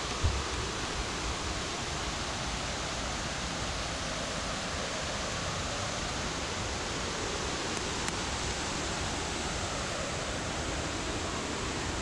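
Steady rushing of a river cascade, water pouring evenly over a wide drop. A brief low thump right at the start.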